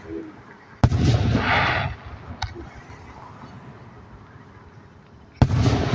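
Two aerial firework shells bursting, one about a second in and another near the end, each a sudden loud bang that trails off over about a second.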